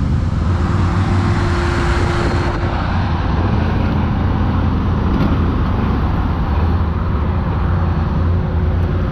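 ATV engine running steadily with a low, even rumble.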